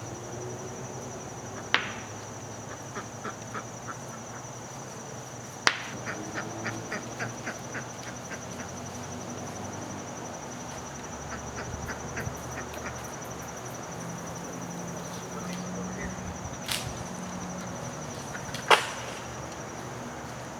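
A few sharp knocks and runs of small clicks from lumber and tools being handled, over a steady high-pitched hum.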